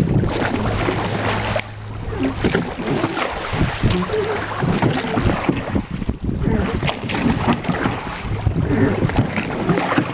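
Wind buffeting the microphone over water splashing and lapping around a rowing boat.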